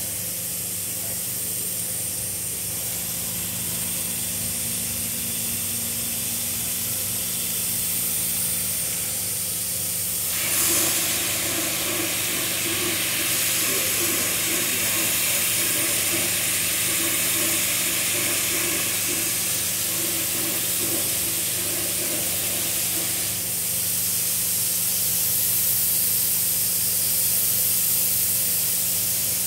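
Caracol robotic-arm large-format 3D printer running as it prints: a steady hum with an airy hiss. From about ten seconds in until about two-thirds of the way through, a louder hiss and a pulsing whir join in, then drop away.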